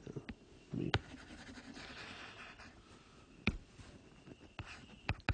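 Stylus writing on a tablet screen: a soft scratching as strokes are drawn, with several sharp taps of the pen tip.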